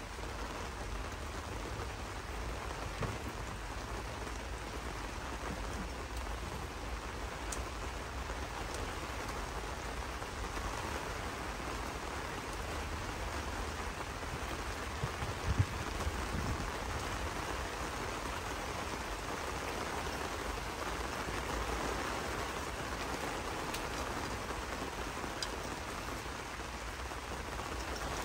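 Chicken pieces deep-frying in hot oil: a steady sizzling hiss with scattered small crackles. A single knock about halfway through.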